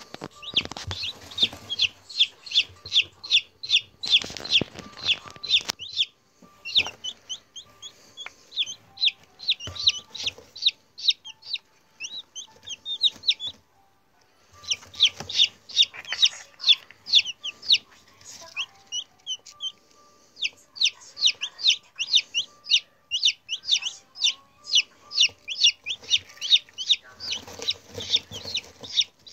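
Newly hatched chicks peeping: a rapid run of short, high peeps, several a second, with a couple of brief pauses.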